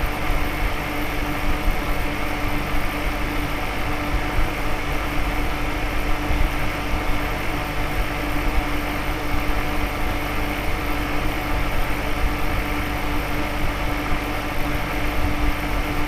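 Homemade ice-chest air conditioner running steadily: its fan blowing air through the ice-water-cooled coil and the pump circulating the water, giving an even whir with a steady hum.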